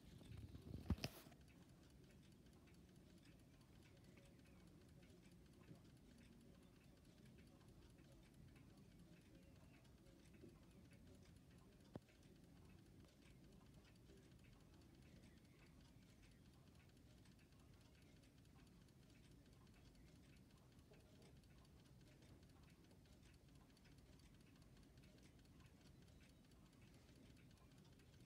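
Near silence: room tone with faint, even ticking. A few sharp clicks sound about a second in, and one more near the middle.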